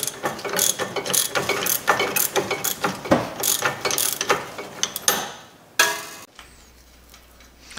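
Ratchet wrench clicking rapidly as the 21 mm nut on the lower strut-to-knuckle bolt is spun loose, followed about six seconds in by a single sharp metal clink as the freed nut is dropped.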